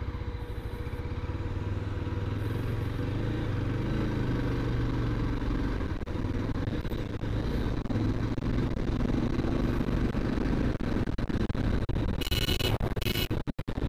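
Yezdi motorcycle's single-cylinder engine running under way, its pitch rising and falling a little with the throttle, with wind noise. Two short high-pitched beeps near the end.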